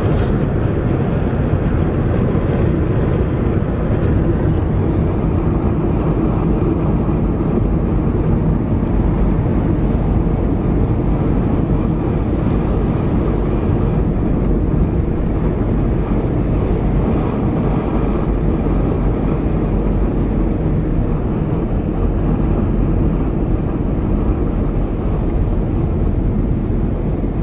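Steady cabin noise inside a Boeing 737-800 in flight: the constant hum of its CFM56 jet engines and rushing air, heavy in the low end, with no change in level.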